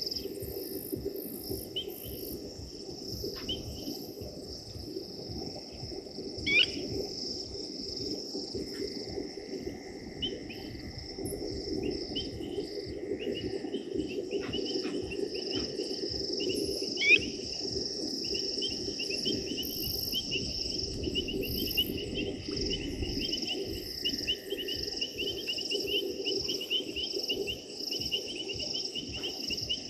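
Night chorus of crickets and other insects: a steady high-pitched trill, joined by a second, pulsing trill from about eighteen seconds in. Two short, sharp bird calls, about six and seventeen seconds in, are the loudest sounds.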